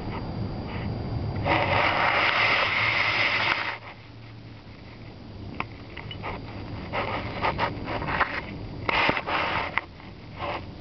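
A kitten nosing and pawing at a camera on the floor and batting a small toy across carpet. A loud rustling noise starts about a second and a half in and lasts about two seconds, followed by scattered scratches and taps of paws and toy close to the microphone.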